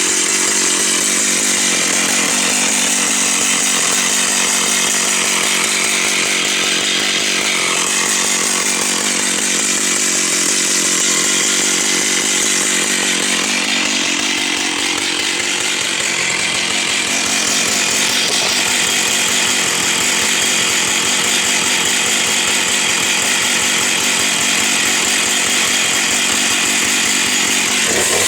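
Stihl 042 two-stroke chainsaw running at full throttle under load, cutting through a log, its engine note wavering slightly about halfway through the cut.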